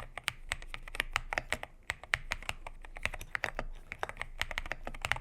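Typing on a GMK67 mechanical keyboard fitted with Akko V3 Cream Blue Pro tactile switches: an uneven run of keystroke clacks, several a second.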